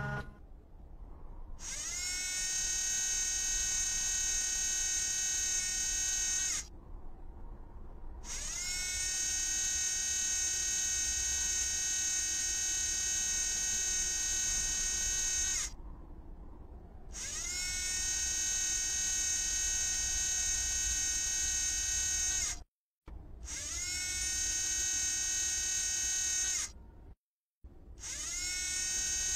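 High electric motor whine that spins up with a rising pitch and then holds steady, over a low rumble. It comes in five stretches of a few seconds each, broken by short silent gaps.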